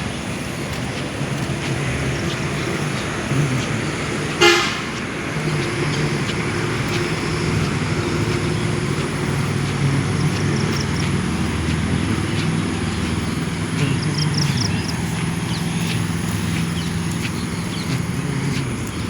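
Steady low hum of road traffic, with a short, loud horn toot about four and a half seconds in.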